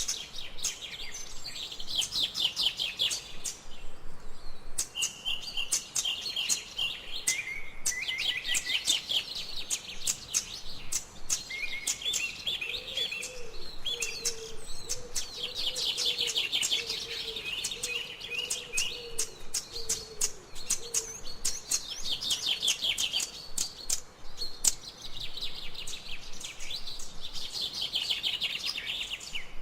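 Jungle birds chirping, several at once, in quick runs of high notes that keep repeating. A lower wavering call joins in about twelve seconds in and stops around twenty-one seconds.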